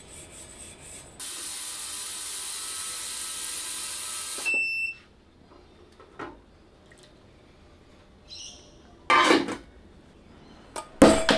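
Water spraying in a steady hiss for about three and a half seconds, starting and cutting off sharply with a short squeak as it stops. A few short knocks and clatters follow later.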